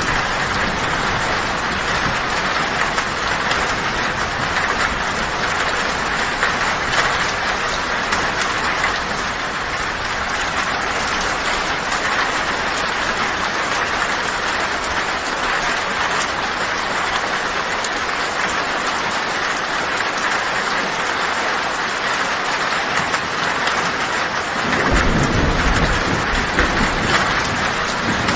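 Heavy rain falling steadily on a tin roof, a dense patter of drops on metal. A low thunder rumble comes in near the end.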